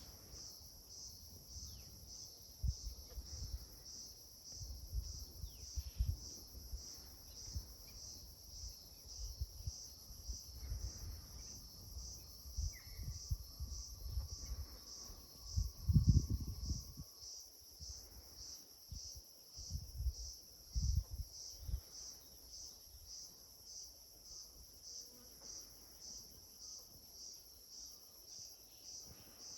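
Crickets chirping in a steady, evenly pulsing high chorus. Low rumbles come and go under it through the first two-thirds, loudest about halfway through.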